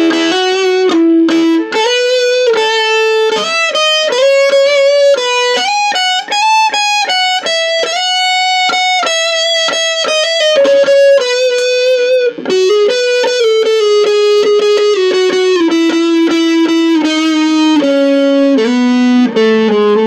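Electric guitar playing a single-note lead melody through a Vox Satchurator distortion pedal, with a Caline Clear Boost pushing the distortion's level up. The notes are held and follow one another without a break.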